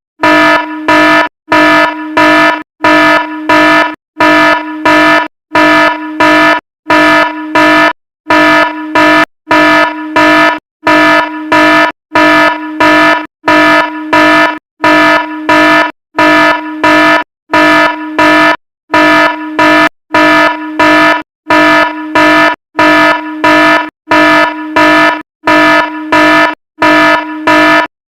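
Fire alarm horn sounding a loud, buzzy pitched tone in short blasts repeated evenly, with brief gaps between them.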